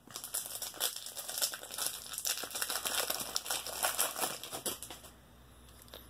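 Foil wrapper of a 1991 Traks racing-card pack being torn open and crinkled: a dense crackling that stops about five seconds in.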